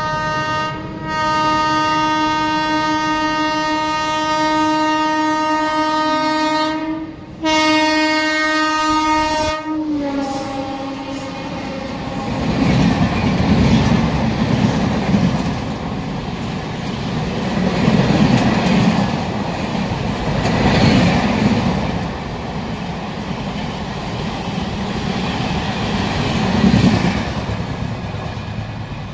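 Locomotive horn blowing for about ten seconds, with two brief breaks, one about a second in and one about seven seconds in. It fades out, and the train passes with the clickety-clack of its wheels over the rail joints, swelling and easing several times.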